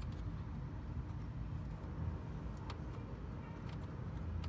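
A steady low rumble, with a few faint, light clicks from a nut being fitted by hand onto a voltage regulator's mounting bolt.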